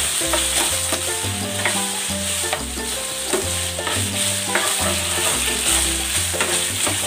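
Chicken strips sizzling in hot oil in a nonstick frying pan while a spatula stirs and turns them, with steady frying hiss throughout. Background music with bass notes plays along.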